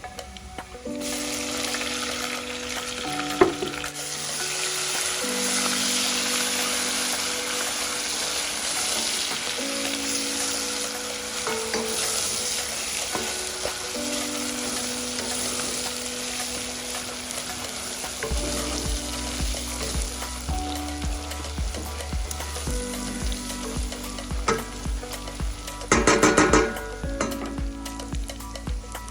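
Meat, onions and garlic sizzling as they fry in a pot for pilau, with stirring and a brief louder scraping rattle near the end. Background music runs underneath, and a steady beat comes in past the middle.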